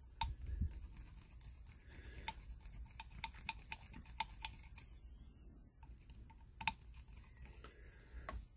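Irregular small metallic clicks and ticks of a hex key working the tiny screws in a model engine flywheel's QD bushing hub. The sharpest click comes about two thirds of the way in.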